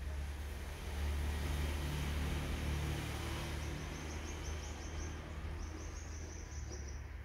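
Steady low background rumble and hiss, with a high, rapid chirping trill that comes in about halfway through and stops near the end.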